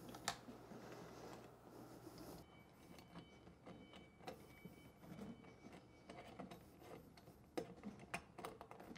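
Faint, scattered metal clicks as a small split retaining ring is worked onto a steel pin at the handle bracket of a surface cleaner, over near silence.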